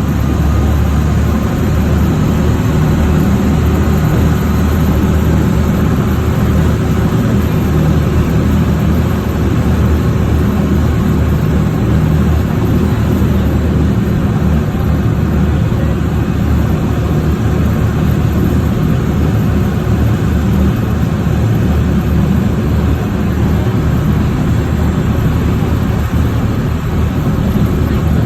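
Amphibious duck boat's engine running steadily as the boat cruises on the river, a loud, even drone with no change throughout.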